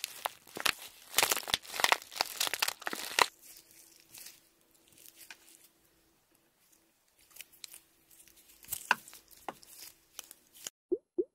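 Clear plastic bags of squishies being squeezed and crinkled in the hands, a dense run of crackling for about the first three seconds. Then quieter handling of small clear squishy cubes, with a few soft sticky clicks.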